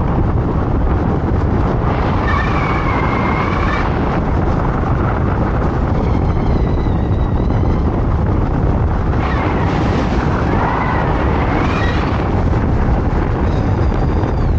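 Strong rushing wind buffeting the microphone at speed, steady throughout, with several stretches of a faint, wavering high whistle over it.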